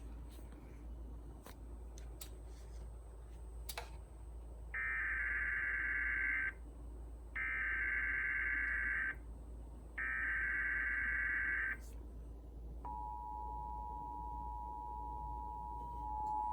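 Emergency Alert System broadcast for a Child Abduction Emergency: the digital SAME header sounds as three identical buzzy data bursts, each just under two seconds long, over a faint hiss with a few clicks. About thirteen seconds in, the steady two-tone EAS attention signal starts and holds.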